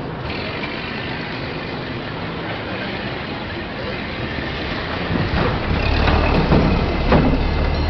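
Added street sound effects: a dense, steady wash of traffic and crowd noise. About five seconds in, the low steady running of an early automobile engine close by comes in, with a few sharp knocks over it.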